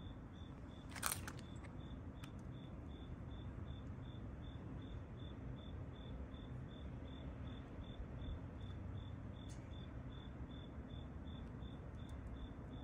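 Faint night-time outdoor ambience: a steady low rumble with a cricket chirping steadily, a high pulse about three times a second. One sharp click about a second in.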